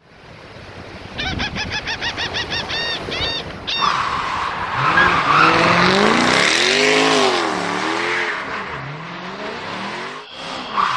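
Car engine revving up and down with tires squealing, after a quick run of high chirps about five a second lasting some two and a half seconds.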